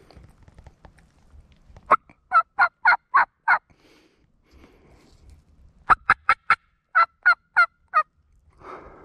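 Wild turkey yelping: a run of about six short, sharp yelps, then after a pause of about two seconds a second run of about eight.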